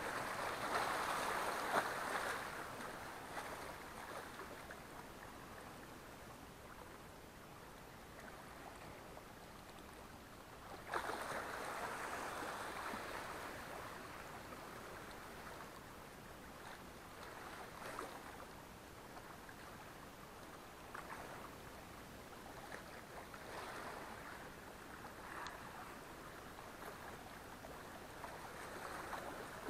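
Small sea waves washing and lapping against shoreline rocks, with a louder wash at the start and another about eleven seconds in, and a few faint clicks.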